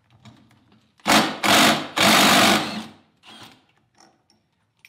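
Cordless impact wrench hammering the 19 mm flywheel nut off a Honda UT3 quarter midget engine, in three short loud bursts starting about a second in.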